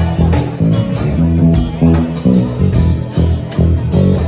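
Band music without vocals: guitar over a prominent bass guitar line of repeated low notes.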